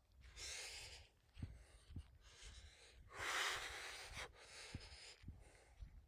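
A person breathing close to the microphone while walking, a string of soft puffs with the longest and loudest a little past three seconds in. Short low thuds of footsteps on gravel come in between.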